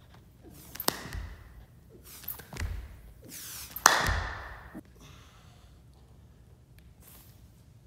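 Clapping push-ups: three sharp hand claps about a second and a half apart, each followed by a thud as the palms land back on the floor, with hard breaths around them.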